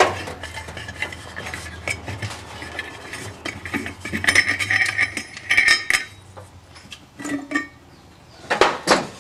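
Metal clinks and scrapes as the wing nut on a pickup's metal air cleaner lid is unscrewed and the lid is handled, with a couple of louder clanks near the end as the lid is lifted off the filter housing.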